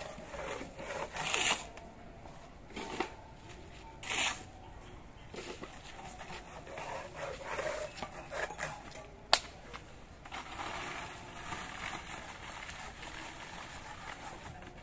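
Hand trowel scraping and scooping wet cement mix and packing it into a mould, in irregular gritty strokes, with one sharp knock about nine seconds in.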